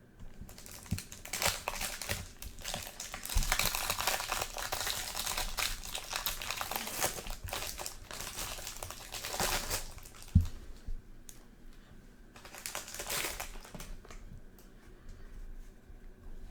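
A trading-card pack's plastic wrapper being torn open and crinkled, in long crackling stretches, with a single sharp thump about ten seconds in.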